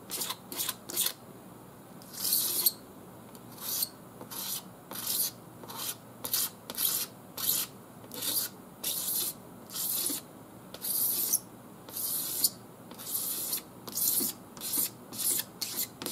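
Razor blade scraping a sag off cured automotive paint on a car door's bottom edge: short, dry, rasping strokes, about two a second, with a couple of brief pauses between runs.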